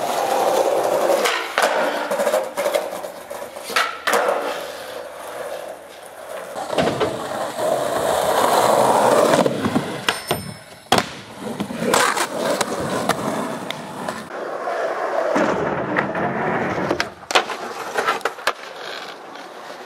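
Skateboard wheels rolling over skatepark ramps, in several spells, broken by many sharp clacks of the board hitting the ramp and ground.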